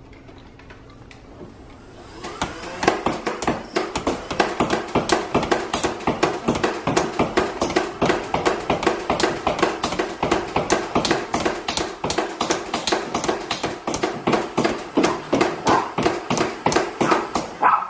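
Motorized Nerf Rival blaster firing foam balls on full auto: a fast, even run of shots over the steady whine of its motor, starting about two seconds in and stopping just before the end.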